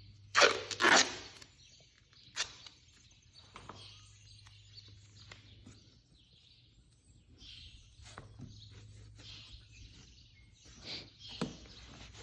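Duct tape pulled off the roll in two quick rips near the start, followed by scattered clicks and rustles of the tape and nest materials being handled.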